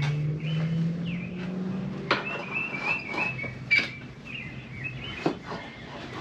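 Birds chirping and twittering, with a low hum in the first couple of seconds and a few sharp knocks or clicks from handling metal parts.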